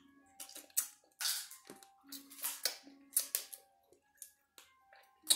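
Close-up eating noises from a seafood boil: wet mouth smacks, sucking and small crackles as crab and lobster are eaten by hand, in irregular clicks.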